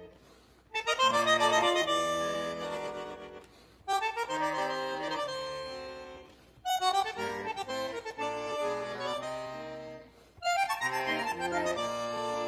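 Instrumental background music: four phrases of notes and chords, each starting sharply and fading away before the next.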